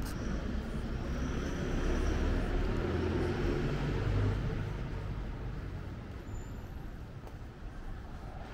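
A motor vehicle driving past on a city street: its engine rumble and tyre noise swell over the first couple of seconds, peak around the middle, then fade away.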